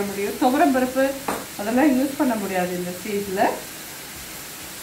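Finely chopped carrot frying in ghee in a pan with a steady sizzle. A woman's voice talks over it for about the first three and a half seconds, then the sizzle is heard alone.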